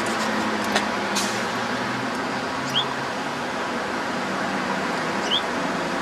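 Steady city traffic noise with a faint low hum. A small click comes under a second in, and two short high rising chirps about three and five seconds in.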